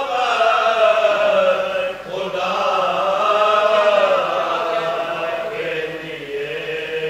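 Men's voices chanting a marsiya, the Urdu elegy for Imam Husayn, in long held notes that slowly waver in pitch. There is a short breath break about two seconds in.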